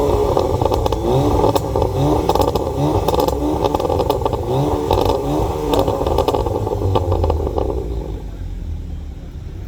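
Tuned car engine with anti-lag revved over and over, its pitch rising with each blip, with sharp exhaust pops and crackles in between. The revving stops near the end, leaving a lower, quieter running.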